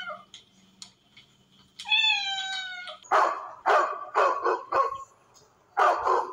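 A cat meowing: one drawn-out, slightly falling meow about two seconds in. It is followed by a run of short, harsh animal calls, about two a second, and one more near the end.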